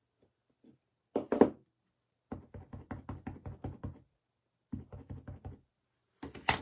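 An ink pad dabbed repeatedly onto a stamp mounted on a clear acrylic block to ink it: quick light taps, about six a second, in two runs. A few louder knocks come from the pad and block being picked up and set down, about a second in and near the end.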